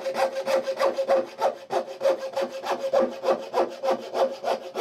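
Coping saw cutting a curve in a board, in quick, even strokes, about four a second, with a steady tone running under the strokes.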